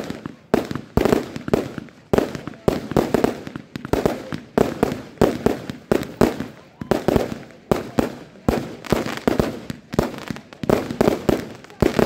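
Aerial fireworks display: a rapid, continuous barrage of shells bursting, several bangs a second.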